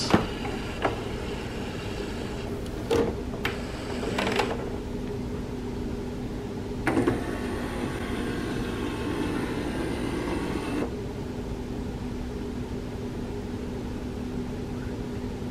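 HP Envy 6400-series inkjet printer's internal mechanism running for about four seconds, starting about seven seconds in, with a few clicks before it and a steady low hum throughout, as the printer resets to factory defaults and powers down.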